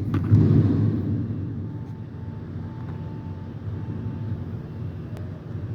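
Garbage truck engine running, loudest in the first second and then settling to a steady level.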